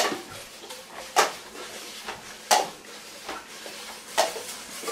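Sharp clacks of dishes and household things being knocked about during cleaning, four distinct hits spaced a second or so apart.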